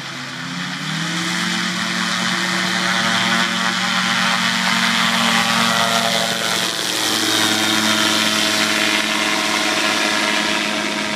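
Gyroplane engine and propeller throttling up about a second in and then running steadily at takeoff power, with a brief dip in level about two-thirds of the way through.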